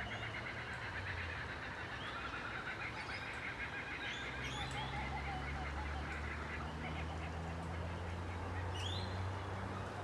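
Laughing kookaburra calling: a rhythmic run of quick chuckling notes, then scattered higher rising notes later on, over a low steady hum.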